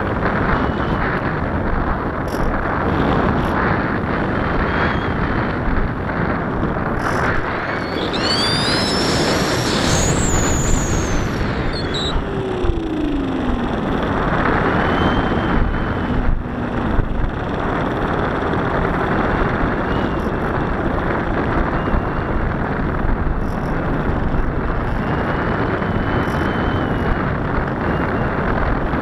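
Wind rushing over the microphone of a camera riding on a radio-controlled model plane in flight, with the motor's faint whine under it. About eight seconds in, the whine climbs steeply in pitch for a few seconds, then drops away around twelve seconds.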